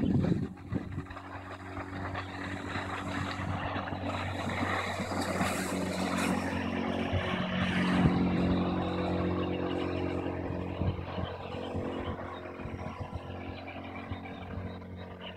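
Johnson 8 hp outboard motor running at speed on a small boat, getting steadily louder to a peak about halfway through and then fading away.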